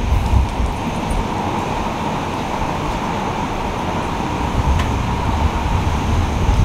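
Steady low rumble and even hiss of a moving vehicle.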